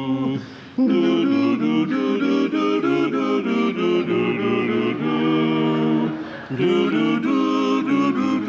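Barbershop quartet singing a cappella, four men's voices in close harmony on wordless 'doo' syllables in short rhythmic chords. The singing breaks off briefly about half a second in and again about six and a half seconds in.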